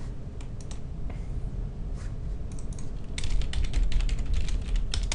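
Typing on a computer keyboard: a few scattered keystrokes, then a quick run of keystrokes from about three seconds in, over a steady low hum.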